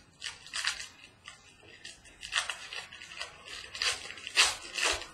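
Hands opening a box of trading cards: packaging crinkling and rustling in irregular bursts, loudest near the end.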